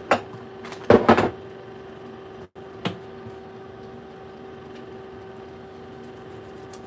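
A seasoning shaker bottle handled and shaken: a few clicks, then a quick cluster of rattling shakes about a second in and one more click near three seconds. A steady low hum runs underneath.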